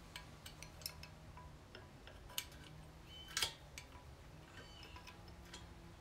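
Faint, scattered small metal clicks and taps as a release pedal is fitted to the base of a hydraulic spring compressor's bottle jack, with two sharper clicks about two and a half and three and a half seconds in.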